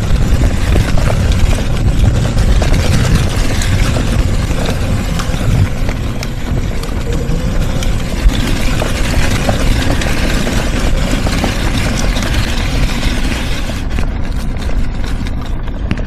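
Loud, steady rumbling and rustling from a clip-on microphone that has fallen off and hangs loose, picking up the noise of an electric off-road mobility scooter on the move along a rough track.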